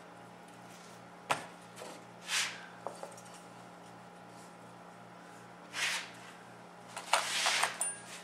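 Handling noises on a workbench as hands set down a glue bottle and square up a mitered wooden picture frame held by wire spring clamps. There is a sharp knock about a second in, a small click, then several short brushing and scraping sounds, over a steady low hum.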